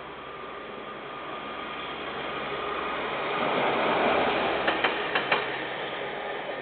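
A KiwiRail train passing, its rumble swelling to a peak about four seconds in, with a quick run of sharp clacks just after the peak, then easing away. Heard through a security camera's microphone, with a dull, cut-off tone.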